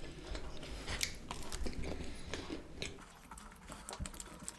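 Close-miked chewing of a mouthful of cheese pizza: many small wet clicks and smacks, thinning out after about three seconds.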